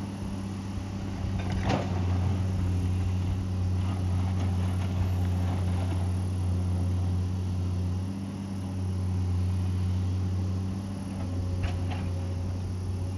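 Excavator's diesel engine running steadily, with a few sharp knocks: one about two seconds in and a pair near the end.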